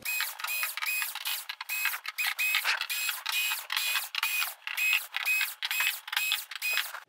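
Cordless electric screwdriver whirring in short bursts, about two a second, as it backs screws out of a flat-screen TV's plastic back cover. The motor whine is high-pitched.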